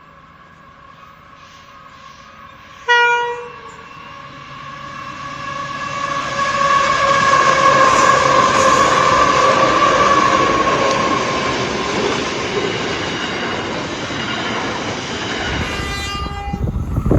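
Train horn sounding: a short blast about three seconds in, then a long held horn note that swells louder and eases off. Another short blast comes near the end, and the loud rumble of the passing train sets in.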